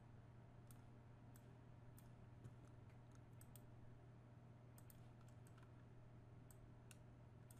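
Near silence with faint, scattered computer mouse clicks, about a dozen spread irregularly, over a low steady hum of room tone.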